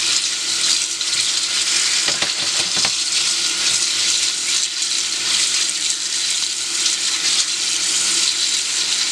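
Kitchen tap water running steadily and splashing onto pea pods and loose peas in a plastic colander, while a hand stirs and turns the wet pods under the stream.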